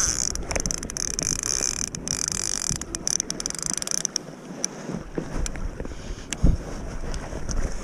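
Sea water slapping and splashing against a fishing kayak's hull close to the microphone, with wind buffeting the mic. There are scattered knocks, with a stronger thump about six and a half seconds in.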